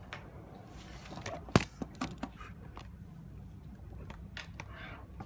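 Scattered clicks and knocks of pens and paper being handled on a desk, with one sharp knock about one and a half seconds in and brief paper rustles, over a steady low hum.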